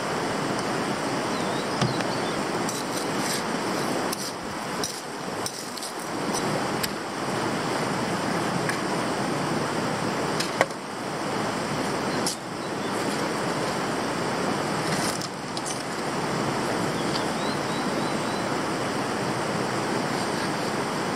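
Steady rush of a mountain river running over rocks, with a few sharp knocks, the loudest about halfway through.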